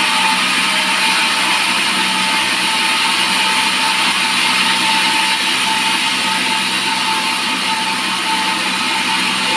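Band sawmill running steadily with a constant whine as its blade cuts through a teak log.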